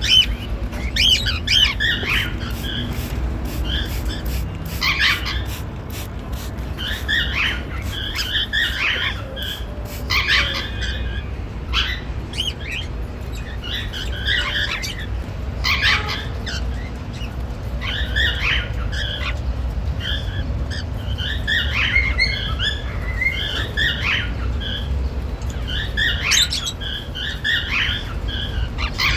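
Normal grey cockatiels chirping and squawking in short bursts of calls, a burst every second or two, over a steady low rumble.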